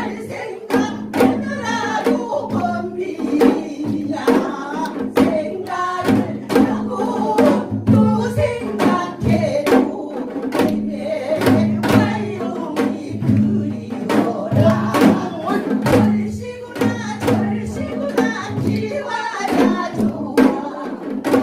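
Group of Korean janggu drums (hourglass drums) beaten in a steady beat, playing along with a song that a voice sings over it.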